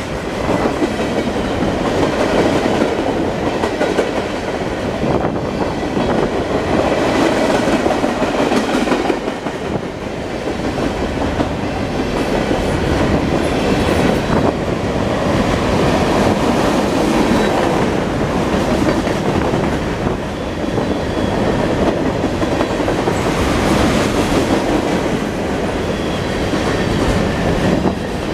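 Freight cars of a long mixed manifest train rolling past steadily, steel wheels clicking and clattering over the rail joints.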